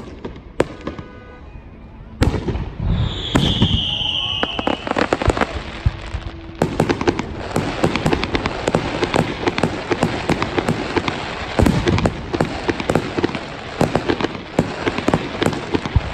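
Fireworks display: scattered bangs of shells bursting, with a high, slightly falling tone lasting over a second about three seconds in. From about halfway it turns into a dense, rapid run of crackling pops.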